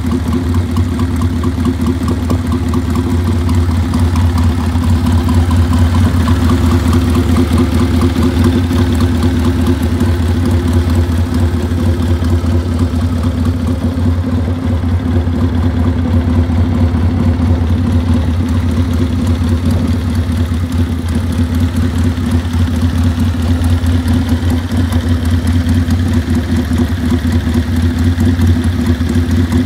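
1939 Triumph Tiger 100's 500cc parallel-twin engine idling steadily through its exhausts.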